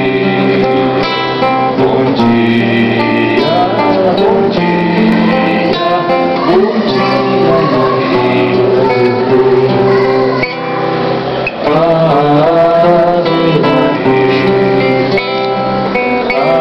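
Nylon-string classical guitar played in chords and picked notes, with a man singing over it.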